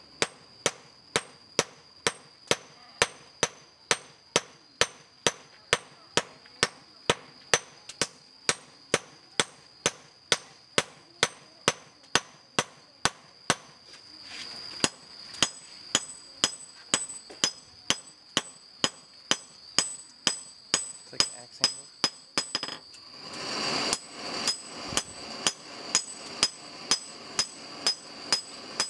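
Hand forging: a hammer striking a steel blade held on a small round anvil in a steady rhythm, about two blows a second, each blow ringing with a high metallic tone.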